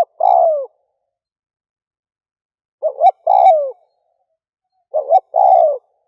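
Spotted dove cooing: three phrases, about every two and a half seconds, each made of two short coos and then a longer note that falls in pitch.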